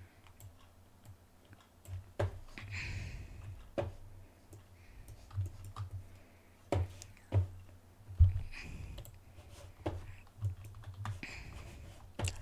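Computer mouse and keyboard in use: irregularly spaced clicks of mouse buttons, scroll wheel and a Shift key press, over a faint low hum.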